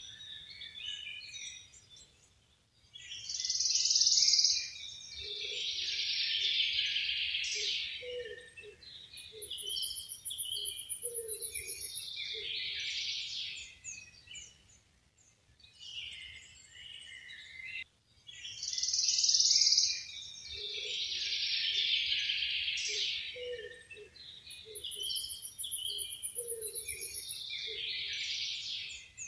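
Several songbirds singing together in dense bursts of chirps, with a high thin trill twice and scattered low notes beneath. The same passage of song plays twice, about fifteen seconds apart, as in a loop.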